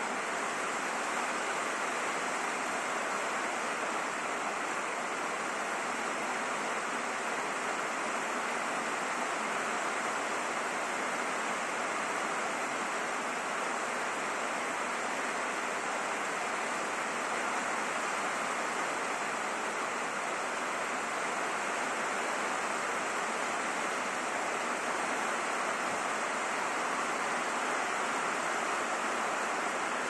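Steady rain falling and hitting a roof, an even hiss with no let-up.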